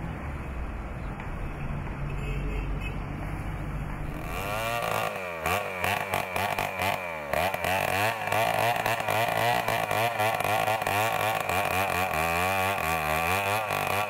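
A low, steady rumble for about the first four seconds, then a two-stroke chainsaw cutting into a tree trunk, its engine pitch rising and falling again and again as it bites into the wood.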